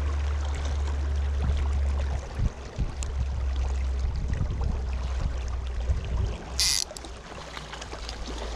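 Small mountain creek running steadily over a constant low rumble, with a brief high hiss about two-thirds of the way through.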